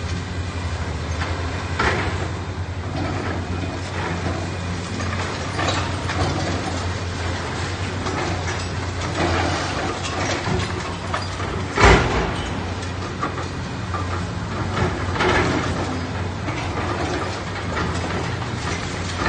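Komatsu long-front demolition excavator at work: its diesel engine runs with a steady low drone while irregular crunching, scraping and knocking of demolition debris comes and goes. One loud crash comes about two-thirds of the way through.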